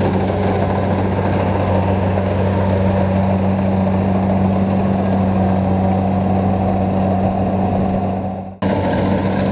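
Kubota DC70 rice combine harvester running steadily as it cuts and threshes rice, its diesel engine giving a steady low hum under the machinery noise. Near the end the sound cuts out abruptly for a split second, then resumes.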